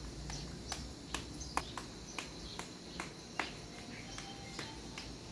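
Small birds chirping in short, sharp, irregular notes, roughly two a second.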